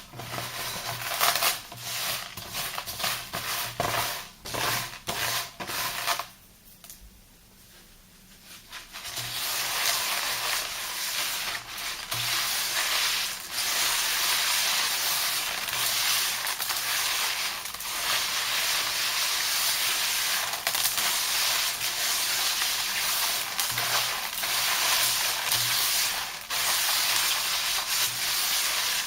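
A thick soap lather and sea salt paste being mixed and squished, a wet, gritty crackling. Irregular clicks for about the first six seconds, a short pause, then a denser, steady crackle.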